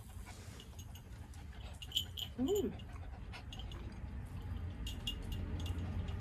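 A papillon dog gives one short whine that rises and falls, about two and a half seconds in, begging for food from the grill. Scattered light clicks and taps sound around it.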